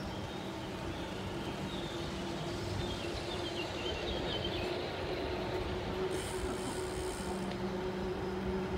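Steady rolling road noise with a constant low hum from the moving vehicle carrying the recorder, with a faint high chirping a few seconds in.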